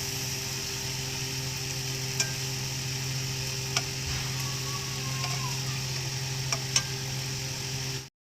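A spoon stirring grated carrots and milk in a pan on the stove, over a steady sizzle, with a few sharp clinks of the spoon against the pan. A steady low hum runs underneath.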